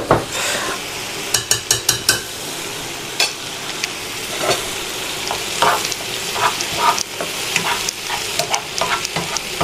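Champignon mushrooms frying in oil in a pan: a steady sizzle with frequent short crackles and clicks.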